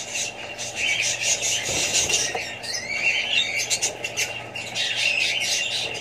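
Budgerigars chattering: a dense run of rapid squawks, chirps and clicks, with one longer wavering call about halfway through.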